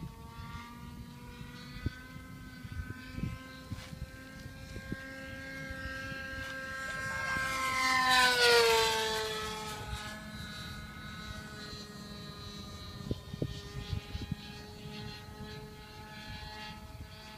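Radio-controlled model airplane's O.S. .46 two-stroke glow engine buzzing at high revs in flight. It grows louder to a peak about eight seconds in as the plane passes close, then its pitch drops sharply as it flies away.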